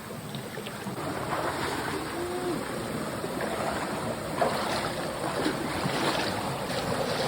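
Steady rush of flowing water, growing slightly louder.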